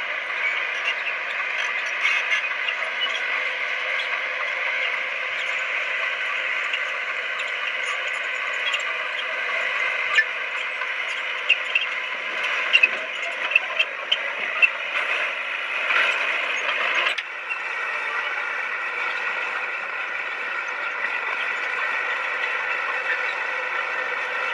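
Komatsu D20P bulldozer's diesel engine running steadily, with a string of sharp metallic clicks and clanks in the middle. The engine note changes abruptly about two-thirds of the way through.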